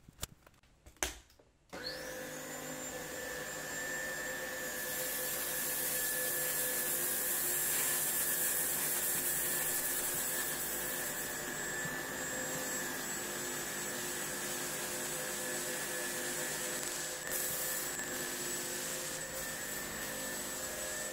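BISSELL HydroWave upright carpet cleaner switching on after a couple of clicks: its motor whines up to speed and then runs steadily with a suction hiss while it is worked over the carpet. The hiss grows louder for several seconds from about five seconds in.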